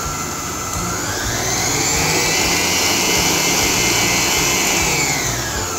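Electric stand mixer running, its beater turning flour and cocoa into cake batter in a stainless steel bowl. The motor whine rises in pitch as it speeds up about a second in, holds, and drops again near the end, over an uneven low knocking.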